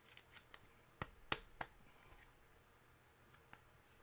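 Faint, scattered clicks and taps of trading cards being handled, with a quick cluster in the first couple of seconds and two more clicks near the end.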